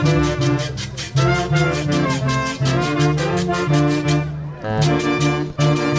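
Brass band music, trumpets and trombones over a fast, steady drum beat, briefly thinning out about four and a half seconds in.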